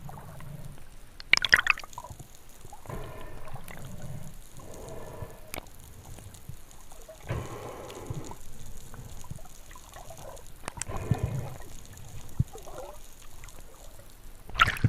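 Water sloshing and gurgling in irregular bursts every few seconds, with a few sharp clicks between them.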